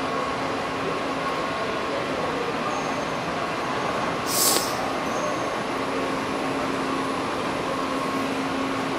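Steady ventilation hum and background noise of a large exhibit hangar, with a faint constant tone running through it. A short hiss sounds once about four and a half seconds in.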